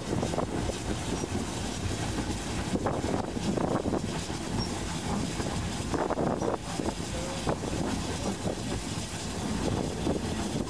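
Saddle-tank steam locomotive running along the track: a steady rumble and rattle of the moving train, with occasional clacks from the wheels on the rails.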